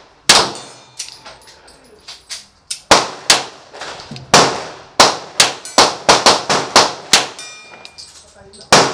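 Springfield XD(M) 5.25 9mm pistol firing a string of about a dozen shots. The shots speed up to roughly three a second in the middle, then pause before one last shot near the end. Steel targets ring with a short metallic ping after hits.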